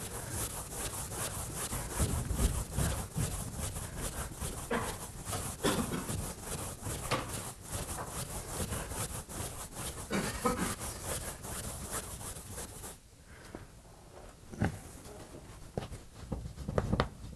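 Chalk scratching and tapping on a blackboard as a line of equations is written: a quick run of strokes that stops about thirteen seconds in, then a few single taps.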